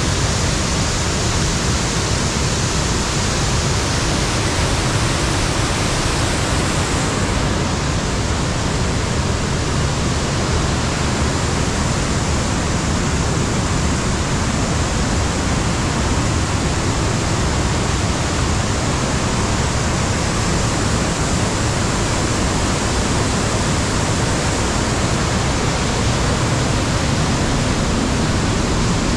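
Waterfall rushing steadily and loudly, white water pouring down through a narrow rock gorge.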